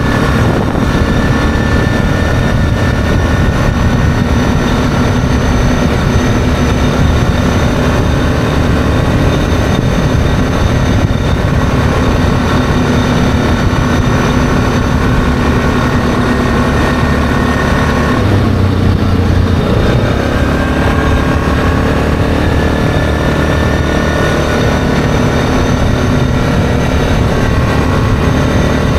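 ATV engine running steadily at road speed over a dense low rumble. About two-thirds of the way through, the engine note dips briefly as the throttle eases, then the revs climb gradually.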